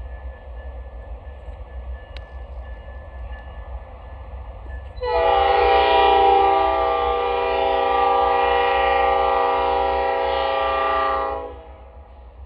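Air horn of a GE AC44C6M diesel locomotive leading a freight train, sounded in one long steady blast of about six seconds starting about five seconds in, over a low rumble.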